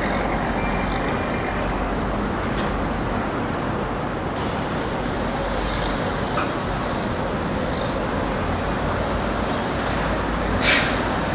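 Steady rumble of city traffic, with a short hiss near the end.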